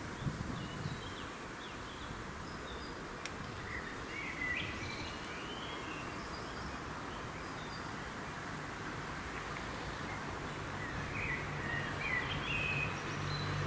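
Birds chirping in short bursts over a steady background hiss; near the end a low steady hum from the approaching Škoda class 380 electric locomotive grows in.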